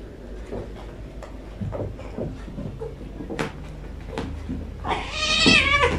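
Cats moving about on a carpet with soft scattered knocks and rustles, then one cat gives a single loud, drawn-out meow lasting about a second near the end, falling slightly in pitch.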